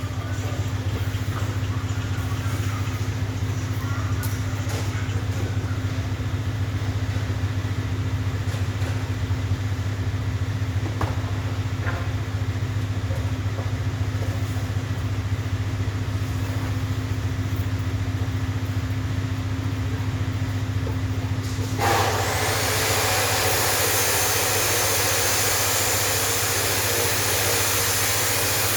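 An engine idling steadily, a low even hum. About three quarters of the way through, a loud steady hiss suddenly joins it.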